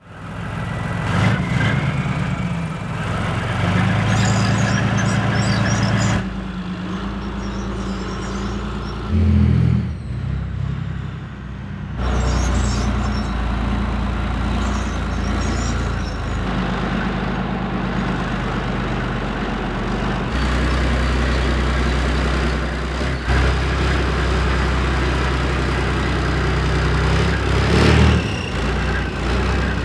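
A heavy tracked armoured vehicle driving slowly, its diesel engine running with a deep steady drone. Bursts of metallic track clatter and squeak come through at times, and the level changes abruptly a few times.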